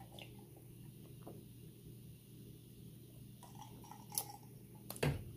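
Someone drinking quietly from a glass mug: faint swallows over a low steady hum, with a few short sharp clicks near the end.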